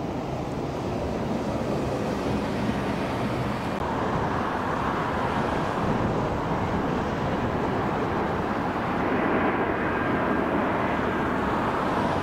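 Steady outdoor road-traffic noise, growing louder from about four seconds in.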